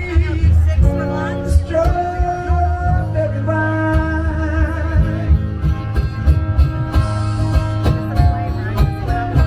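Live bar music: a singer holding long notes over guitar and a steady bass beat.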